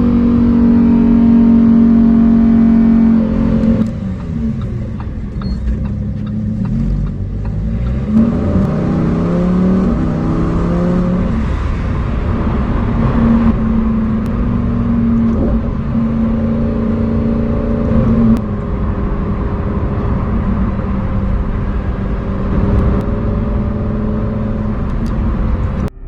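Lamborghini Huracán STO's naturally aspirated 5.2-litre V10 driven hard. It holds high revs, falls away about four seconds in, then climbs again and holds steady for several seconds at a time, with drops in pitch between the pulls and a quieter stretch near the end.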